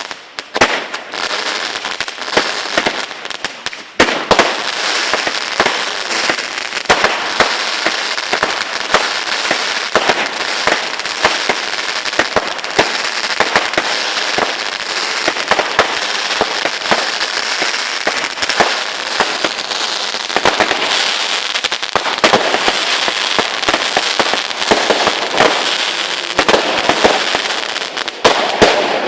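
Fireworks display going off without a break: a dense stream of bangs and crackling that gets louder about four seconds in and then keeps up steadily.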